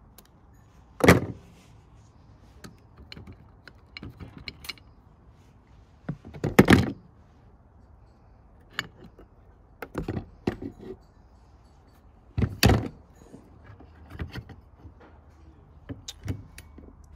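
Handling clatter of quick-release bar clamps being released and an aluminium soft-plastic lure injection mold being taken apart: scattered clicks and metal clanks, with sharp knocks about a second in, around six seconds in and about twelve and a half seconds in.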